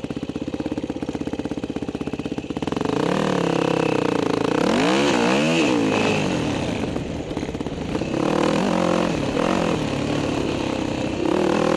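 Dirt bike engine running at low revs with a fast, even pulse, then picking up about three seconds in and blipped up and down a few times around the middle before settling back to steady running.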